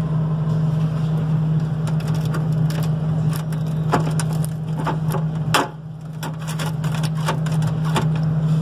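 A run of sharp clicks and cracks, like hard plastic flexing and knocking, as the freezer's ice tray and bin are handled, over a steady low hum.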